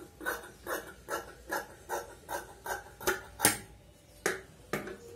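Large steel tailoring scissors cutting through cloth: a steady run of snips, about two or three a second, then a few sharper, louder clacks of the blades in the last couple of seconds.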